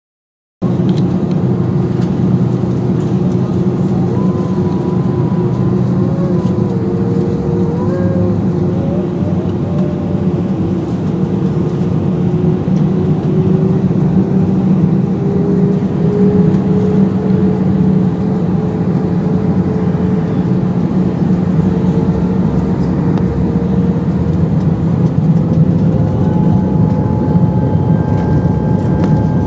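Airbus A319 jet engines heard from inside the cabin while the airliner taxis: a loud, steady rumble with an engine whine that slowly rises in pitch. Higher whine tones come in near the end. The sound cuts in suddenly just under a second in.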